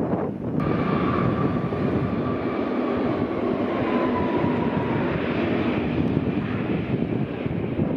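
Airbus A321-211's CFM56 jet engines running: a steady roar with a high whine that slowly falls in pitch, mixed with wind noise on the microphone.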